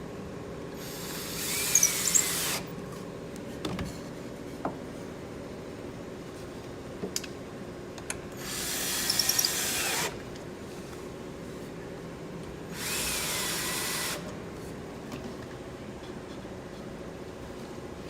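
Power drill driving screws into cedar wood, in three short runs of a second or two each, with light clicks of handling between them.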